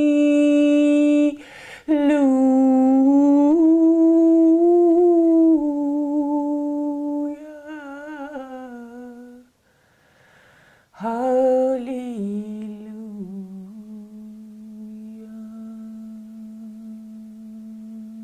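A woman's unaccompanied voice singing long, slow held notes on open vowels. She breaks for a quick breath about a second and a half in and pauses to breathe again about ten seconds in; the last note is held low and steady.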